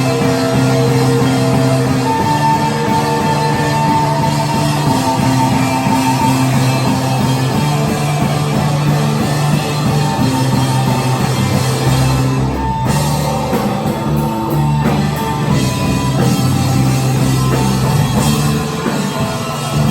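Indie rock band playing live, with drum kit and guitar in a loud, dense, continuous wall of sound. A held, wavering high note rides over the band for the first few seconds.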